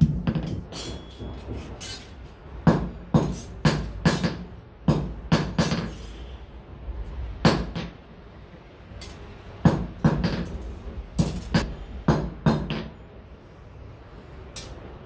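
Hand hammer striking an iron strip on an anvil: sharp metallic clinks with a ringing tail, in irregular runs of several blows separated by pauses.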